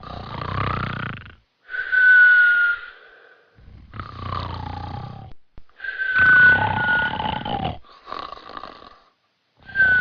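Cartoon snoring sound effect repeating about every two seconds: rumbling snores alternating with high whistling tones, some held steady and some sliding down in pitch.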